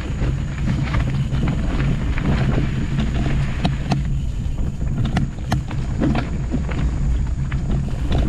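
Mountain bike riding fast downhill over a rough dirt trail: steady wind buffeting on the microphone, with frequent sharp clicks and rattles from the bike jolting over the ground.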